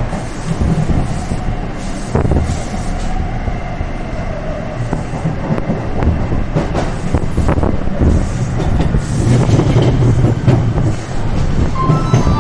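Taipei Metro train running at speed, heard from inside the car: a steady rumble with scattered clicks and knocks from the wheels on the track. Near the end a few short steady tones come in.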